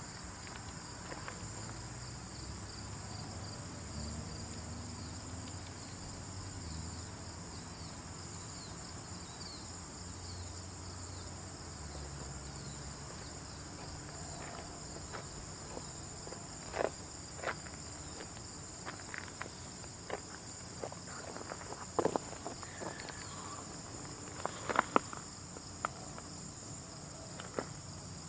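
Steady high-pitched chirring of an insect chorus, with a faint low rumble under it in the first half. From about halfway through come scattered small clicks and ticks, a few louder ones near the end.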